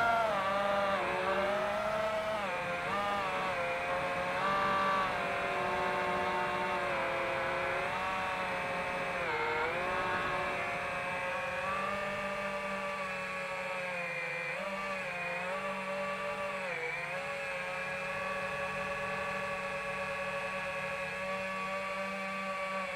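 FPV quadcopter's brushless motors and propellers whining in flight, the pitch rising and falling with the throttle, with a few brief dips in pitch.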